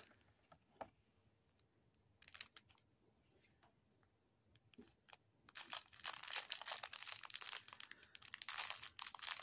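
Small clear plastic bag of crystal beads crinkling as it is handled, after a quiet start with a few light clicks; the crinkling begins about halfway through and goes on densely.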